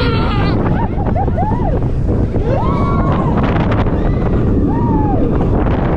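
Heavy wind buffeting the microphone on a moving roller coaster, with riders whooping several times in rising-and-falling calls.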